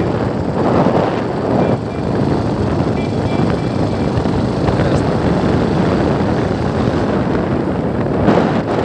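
Steady rush of wind over the microphone mixed with the running and road noise of a moving vehicle, swelling louder about a second in and again near the end.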